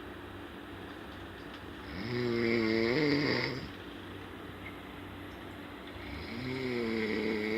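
A person snoring loudly with a pitched, wavering tone: two long snores about four seconds apart, the first about two seconds in and the second near the end.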